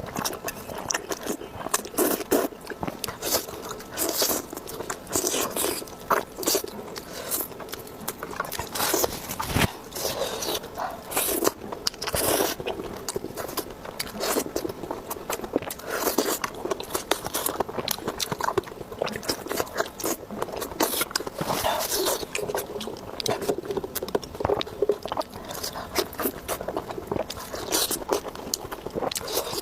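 Close-miked eating sounds: a person biting and chewing food, with a dense, irregular run of crunchy clicks and crackles.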